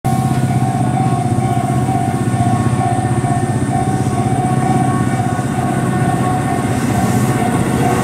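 Japanese level-crossing alarm ringing a steady, fast kan-kan-kan, over the low running sound of a Tobu 8000 series two-car electric train moving past.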